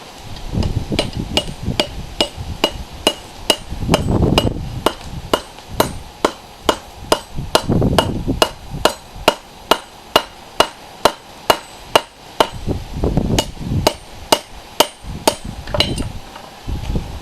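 Hand hammer forging a railroad spike on an anvil: a steady run of blows, a little over two a second, each with a short metallic ring. The blows start about a second in and stop near the end.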